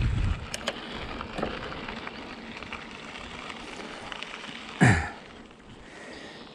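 Bicycle rolling along a trail: a steady crackle of tyres and rattle, with a few small clicks and one loud bump a little under five seconds in.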